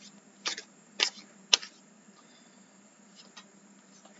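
Tarot cards being handled: four light, sharp snaps about half a second apart, then a few fainter taps a little after three seconds in.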